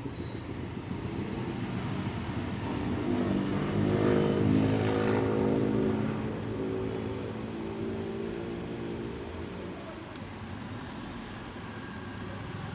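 A motor vehicle's engine note grows louder about three seconds in and fades away by about ten seconds, over a steady low rumble.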